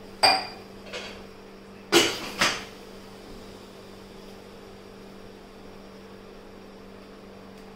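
Steel cookware clanking on a gas stove: a sharp ringing clank, a lighter one about a second later, then two more clanks about half a second apart around two seconds in. A steady electrical hum runs underneath.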